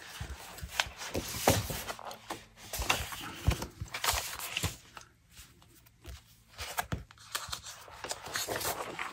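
Sheets of patterned scrapbook cardstock rustling and sliding over one another as a stack is handled and fanned out on a cutting mat, with light taps of paper and hands. It goes quieter for a moment about five seconds in.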